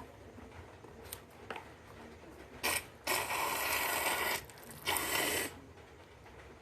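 A balloon being handled, making three bursts of crackly hissing noise; the middle one lasts over a second.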